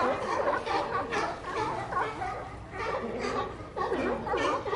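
Sea lions barking and calling over one another, many overlapping calls at once without a break.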